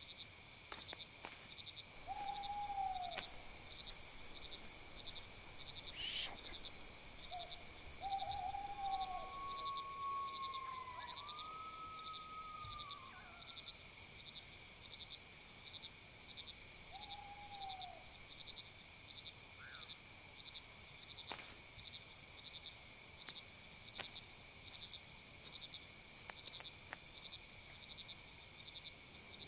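Night-time woodland ambience: crickets and other insects chirping in a steady, evenly pulsing chorus, with a few short arching calls from another animal.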